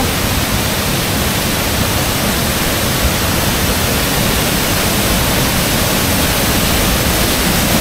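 Detian Waterfall's water crashing down close by, a loud steady rush with no let-up.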